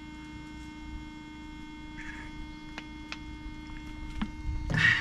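A steady low hum with a few faint ticks, and a short rush of noise just before the end.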